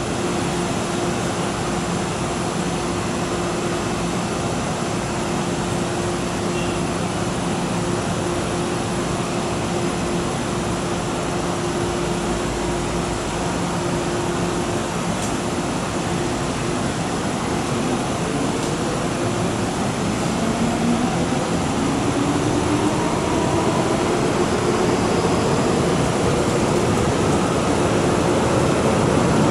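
A steady low hum, then in the last third an MTR M-Train approaching through the tunnel: its traction motors give a rising whine and the rumble grows louder toward the end.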